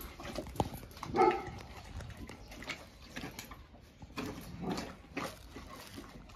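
A large dog eating a whole raw duck, chewing and crunching through it with scattered wet clicks and cracks. There is a short, louder throaty sound about a second in.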